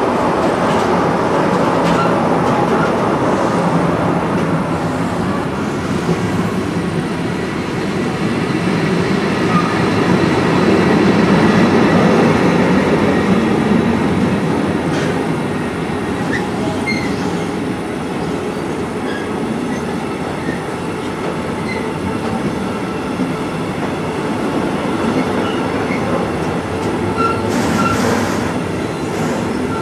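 Long freight train of container and tank-container flat wagons rolling past: a steady rumble of steel wheels on rail that swells and eases a little, with brief faint wheel squeaks here and there.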